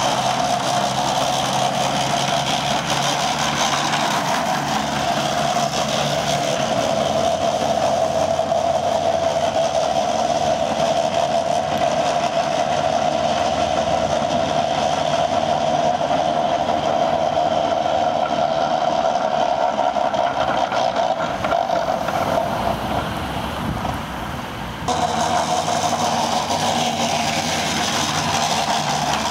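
Alvis Striker tracked armoured vehicle driving, its engine and running gear making a steady sound with a constant whine. The sound dips briefly and then changes abruptly a few seconds before the end.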